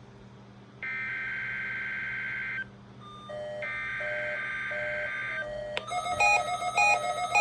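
NOAA Weather Radio SAME header: two bursts of screechy digital data tones, each about two seconds long with a one-second gap between them. About six seconds in, a louder weather-radio alert starts: a steady tone with beeps repeating about twice a second, marking the start of the required weekly test.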